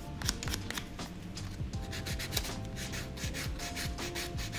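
Hand nail file rasping back and forth over acrylic nails in quick repeated strokes, a few per second, shaping and smoothing them.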